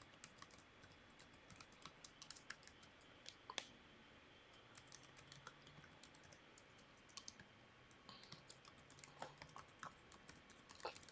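Near silence broken by faint, scattered short clicks and taps, a little more frequent about a third of the way in and again near the end.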